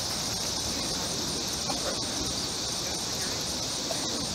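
Evening insect chorus: a steady, high-pitched drone, with a fainter, evenly repeating pulse above it.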